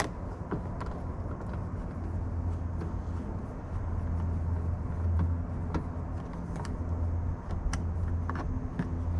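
Scattered light clicks and taps of a plastic trim tool prying an interior trim panel loose, over a steady low hum.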